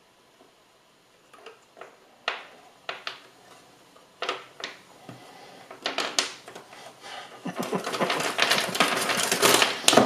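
Thin laser-cut 3 mm wooden pieces clicking and clattering against each other and a wooden tabletop as they are handled. A few separate clicks come first, then a dense run of clatter in the last two or three seconds.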